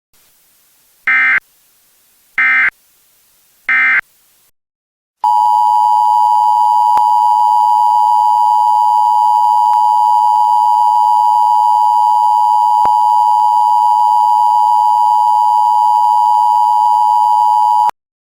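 Emergency Alert System tones: three short, loud digital data bursts about a second and a half apart, then, after a brief pause, the steady two-tone EAS attention signal sounding for about 13 seconds before cutting off abruptly.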